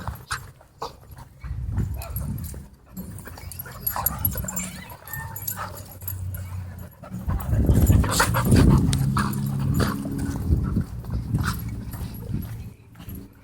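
Dogs growling at each other as they play-fight, with the longest and loudest growling in the second half.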